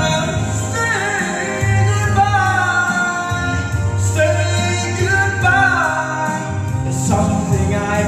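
A man singing a song into a microphone over instrumental backing music with held bass notes.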